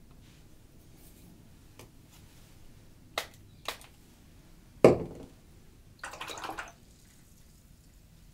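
Small clicks from a painter's brush and materials, a sharp knock about five seconds in, then a brief scrubbing swish about a second later.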